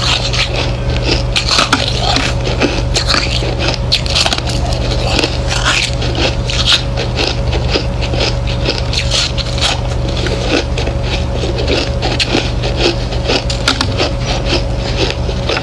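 A person chewing white ice close to the microphone: a continuous run of rapid, crisp crunches and cracks, over a steady low hum.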